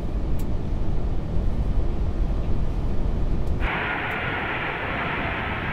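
Steady low rumble of airflow and engines inside an Airbus A380 cockpit on short final to land. About three and a half seconds in it cuts abruptly to the hiss of the A380's four jet engines heard from outside as the plane comes in over the runway threshold.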